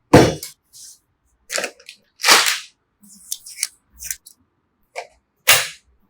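A series of short, sharp clicks and snaps, about eight in six seconds with uneven gaps, the loudest one right at the start.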